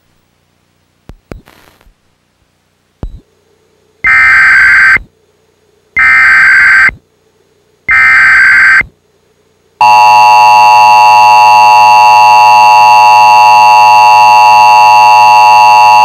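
Emergency Alert System SAME header: three one-second bursts of warbling digital data tones about two seconds apart, then, about ten seconds in, the steady two-tone EAS attention signal starts and holds. Together they open a Required Monthly Test alert.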